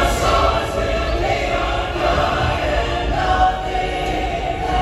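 The ride's soundtrack music with a choir singing over it.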